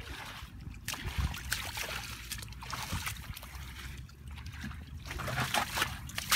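Muddy water being scooped up in a plastic bucket and poured out, splashing and sloshing, with the loudest splash right at the end.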